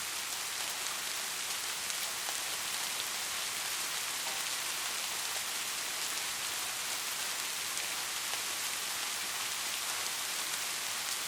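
Steady soft rain falling, an even hiss with faint patter of individual drops.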